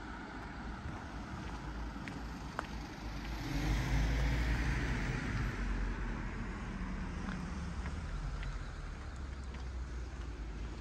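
A car driving past on a street: tyre and engine noise swells about three and a half seconds in, peaks, then slowly fades.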